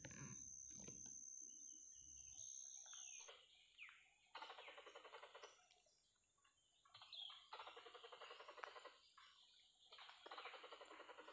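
Faint, rapid rattling animal calls from the tree canopy, in three bursts about a second long each, a few seconds apart.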